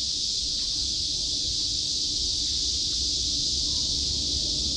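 Steady high-pitched insect chorus, an unbroken outdoor buzz, with a low rumble underneath.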